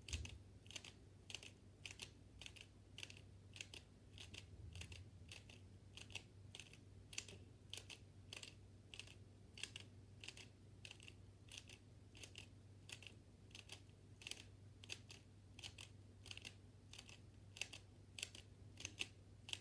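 Plastic Rubik's cube being turned quickly, its layers clicking faintly in a steady rhythm of about two clicks a second.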